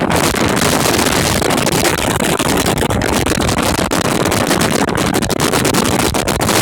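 Storm-force wind buffeting the microphone in a loud, continuous rumble, with constant gusty thumps.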